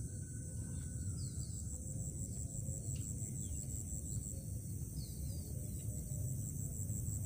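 Insect trilling steadily at a high pitch over a low, even rumble, with a few short, faint falling bird chirps.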